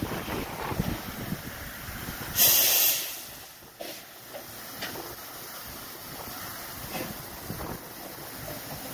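W.G. Bagnall saddle-tank steam locomotive moving slowly, with a short, loud burst of steam hiss about two and a half seconds in. Wind rumble on the microphone at first, then fainter steady running noise with a few soft puffs.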